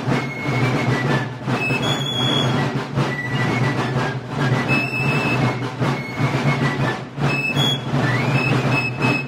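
Rope-tensioned side drum played with sticks in a fast, unbroken stream of 'ra' ruffs and rolls.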